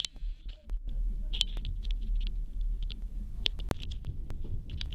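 Steady low rumble of a railway passenger coach running along the track, heard from inside the coach, with scattered light clicks and rattles. The rumble dips briefly at the start and picks up again about a second in.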